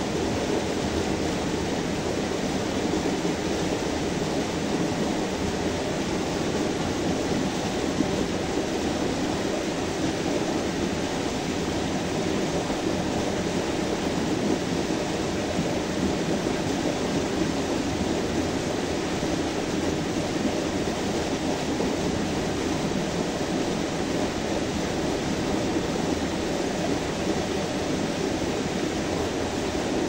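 Small forest-stream waterfall pouring over boulders into a rock pool: a steady, unbroken rush of water.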